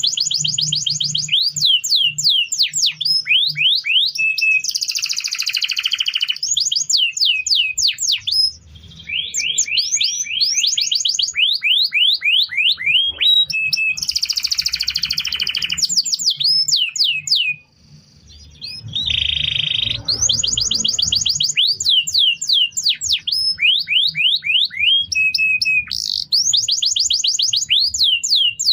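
Domestic canary singing: long rolling phrases of fast repeated chirps and trills, broken by a short pause about 18 seconds in.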